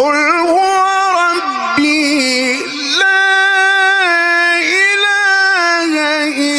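A male Quran reciter chanting one long, drawn-out melismatic phrase in the Egyptian mujawwad style, loud through a microphone. The held notes bend and waver in ornamented turns.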